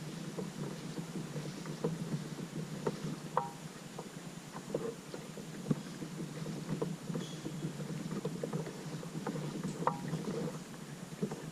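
Water splashing and lapping around a kayak on the water, with scattered small knocks and clicks over a steady low wash.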